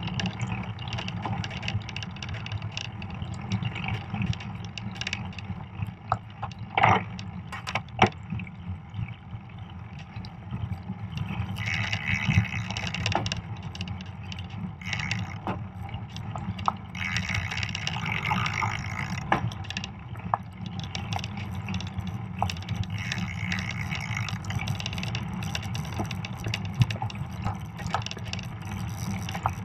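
Fat bike riding over a packed snow trail: a steady low rumble from the tyres and bike, with a few sharp knocks about seven and eight seconds in and several stretches of hissing crunch from the snow under the tyres.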